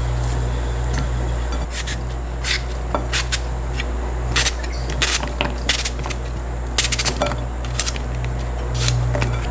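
An irregular string of short, sharp clicks and clatters over a steady low hum.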